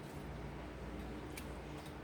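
A few faint clicks of a utensil on the pan as chicken pieces go back into the simmering sauce, over a low steady hum.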